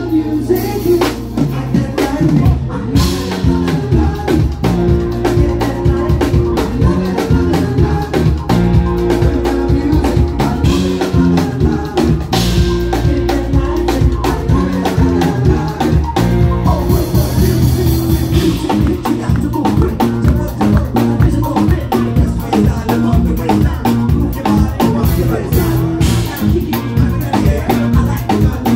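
A live band playing loudly, with a drum kit keeping a steady beat under a male singer.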